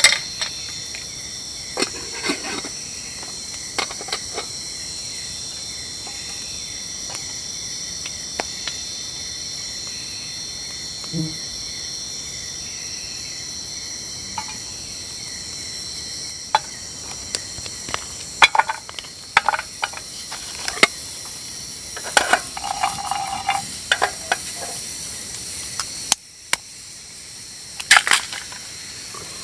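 Night insect chorus of crickets: a steady high trill with a fast pulsing chirp beneath it. Over it come scattered clicks and knocks of cooking utensils against a small camp pot, more frequent in the second half.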